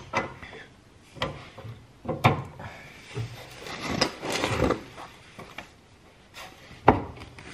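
Metal clanks and knocks of a socket and long breaker bar being fitted and heaved on a tight 18 mm front-suspension fastener, with a sharp knock near the end as the loudest.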